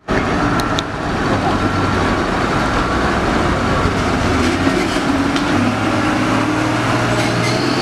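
Heavily loaded Mitsubishi Fuso dump truck's diesel engine labouring steadily under load as the truck crawls through deep mud.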